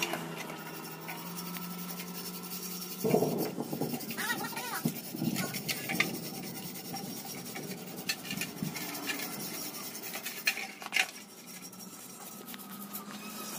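A metal tool scraping and rasping along the coils of a steel rolling-shutter spring, with irregular sharp clicks as it catches on the coils. The scraping starts about three seconds in and dies away near the end.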